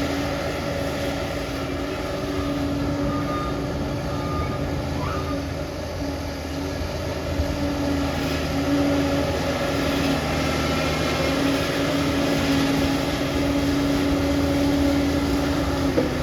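Crawler bulldozer's diesel engine running steadily under load with the clatter of its tracks, and a few short metallic squeaks along the way.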